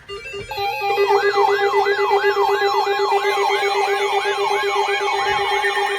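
Electronic alert siren sounding for a severe thunderstorm warning. A steady tone sets in about half a second in, and from about a second in a fast rising-and-falling yelp repeats about three times a second over it.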